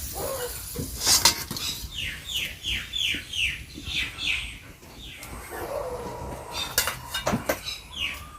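Metal kitchen utensils clinking against pots and dishes, the loudest clink about a second in and a few more near the end. Between about two and five seconds in, a bird calls a run of short falling chirps, about three a second.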